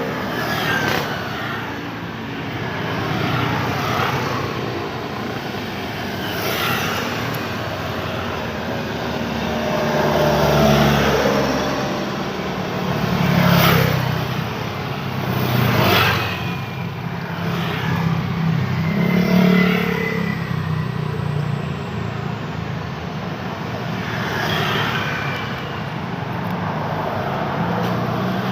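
Road traffic: cars and motorbikes passing steadily on a busy road. Several vehicles go by close, at about 11, 14, 16 and 20 seconds.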